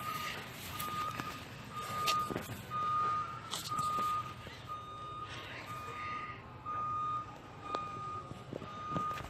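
Electronic warning beeper sounding short beeps at one pitch, a little more than once a second, the pattern of a backup alarm. Faint rustling and a few soft knocks of handling sound under it.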